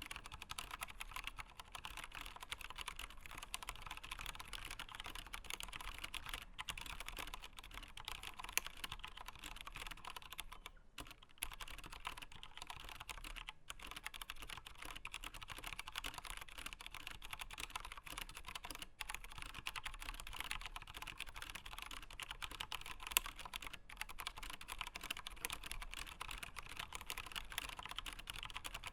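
Typing on a Velocifire VM01 mechanical keyboard fitted with Zorro Brown switches, Cherry MX Brown clones that are tactile and have no click: a fast, steady clatter of keystrokes, with a short pause about eleven seconds in.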